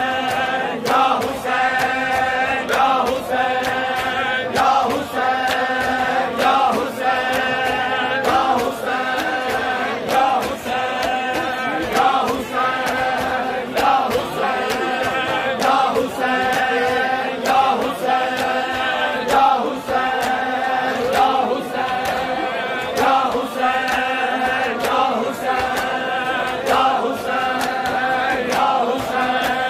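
A group of men chanting a noha in unison, in short phrases every second or two over a held drone, with the crowd's chest-beating slaps (matam) keeping a steady rhythm.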